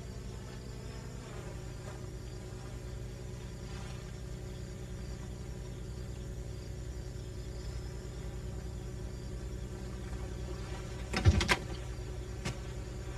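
A steady low buzzing hum, then about eleven seconds in a car door is unlatched and opened: a sharp click and knock, with a lighter knock about a second later.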